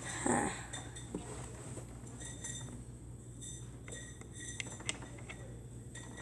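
Light, scattered clicks and clinks of plastic Lego bricks being handled and shifted.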